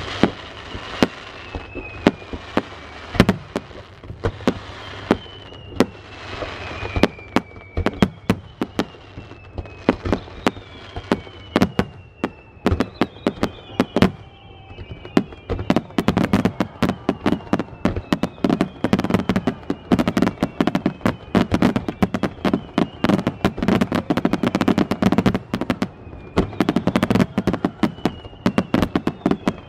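Aerial fireworks display: a rapid string of shell bursts and bangs, with repeated whistles that fall in pitch. About halfway through, the bangs come much thicker, in a near-continuous crackling barrage.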